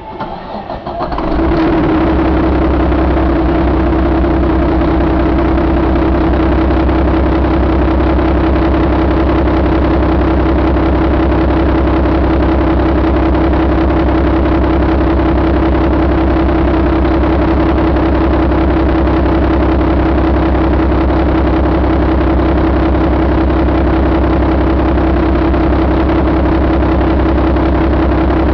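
Mack MP7 inline-six diesel engine starting about a second in, then idling steadily.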